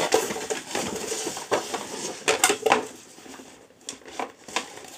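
Small hard objects clicking and clattering as they are handled, with a dense run of sharp knocks over the first three seconds that thins out toward the end.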